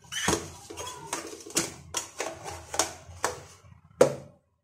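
Hard plastic clicks and knocks from the lid and jar of a small electric blender being fitted together and handled on a tiled counter, about ten irregular clicks, the loudest about four seconds in. The motor is not running.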